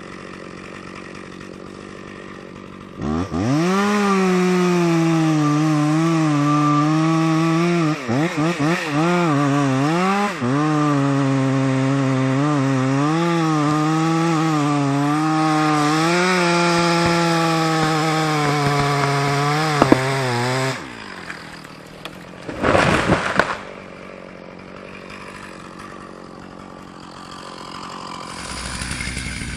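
A chainsaw revs up sharply about three seconds in and runs at high revs cutting wood for about seventeen seconds, its pitch wavering and dipping as the chain bites, then falls away. A short loud burst follows a couple of seconds later.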